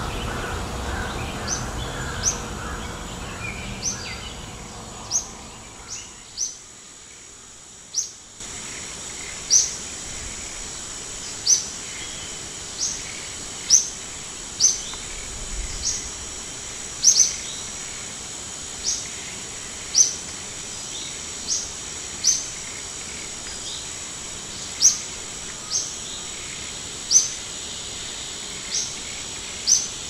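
A bird repeating a short, thin, high chirp that falls in pitch, about once every one to two seconds, over a steady high-pitched background drone and hiss.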